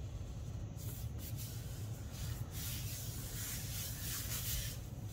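Hands rubbing and smoothing glued patterned paper panels down onto a cardstock card front: a dry, hissy swishing of palms and fingers on paper in repeated strokes, starting about a second in.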